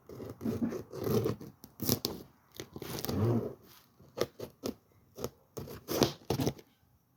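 Cardboard shipping box being opened by hand: irregular tearing and scraping of packing tape and cardboard, then several short sharp clicks and scrapes in the second half.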